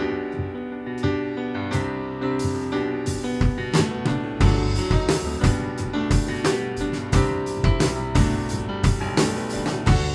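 Worship band playing an instrumental passage: piano or keyboard chords with a drum kit keeping a steady beat, the drums coming in more strongly about two to three seconds in.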